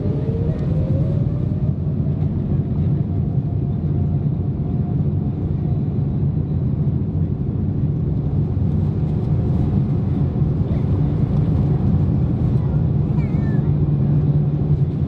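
Boeing 787-9's GE GEnx engines at takeoff thrust, heard inside the cabin by the wing as a loud steady rumble that grows slightly stronger. A whine rises in pitch over the first couple of seconds.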